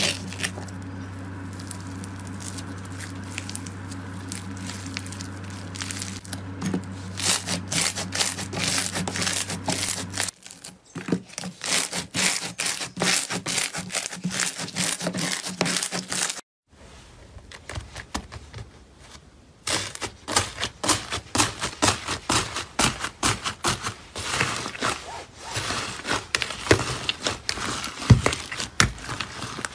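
Slime being squeezed and pressed by hand, giving rapid crackling and popping clicks. For the first ten seconds a steady low hum runs underneath. The sound cuts off abruptly about ten and sixteen seconds in as clips change.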